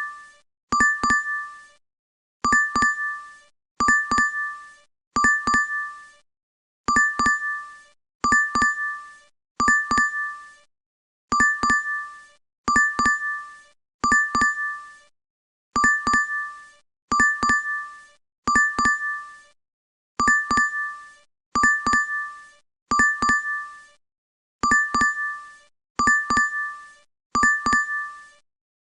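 DoorDash app order-notification chime playing on a loop: a quick pair of bright dings repeated over and over at an even pace, each ding dying away fast.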